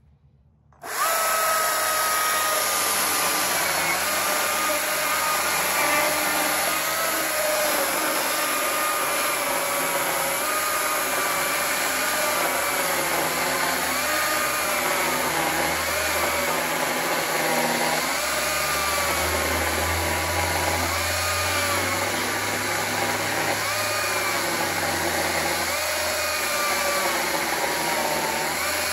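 Stihl battery-powered chainsaw starting about a second in and cutting into a log slab. It gives a steady motor whine whose pitch dips again and again as the chain bites into the wood and then recovers.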